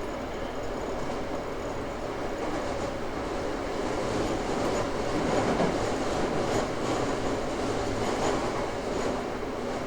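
Toei 5300 series subway car with a Mitsubishi GTO-VVVF inverter, running and heard on board. Steady rolling noise grows louder midway, with a few clicks over rail joints.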